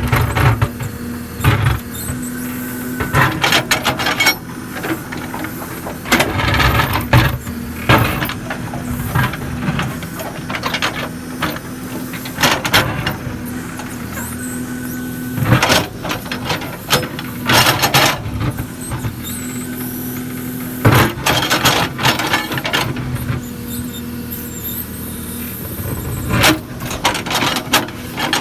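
Case 770 FX backhoe loader at work: its diesel engine runs steadily while the arm and bucket give off repeated clanks, knocks and squeals.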